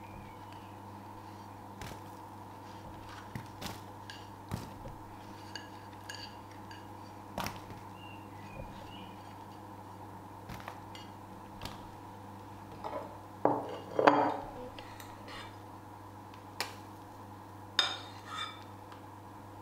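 Scattered light clicks and clinks of kitchen utensils and dishes while strawberries and whipped cream are put onto a Dutch baby pancake in a cast-iron skillet, with a louder cluster of clinks and knocks about two thirds of the way through, over a steady low hum.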